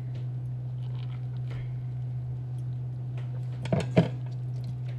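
Wet shredded red cabbage squishing and rustling as handfuls are pressed down into glass jars. Two sharp clinks close together a little before four seconds in, over a steady low hum.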